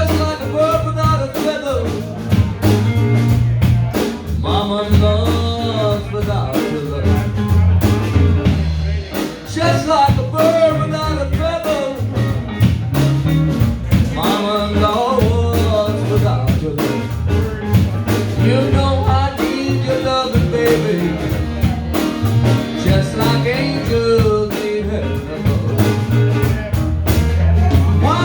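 Blues band playing, with a steady bass and drum beat and a bending, wavering lead melody over it.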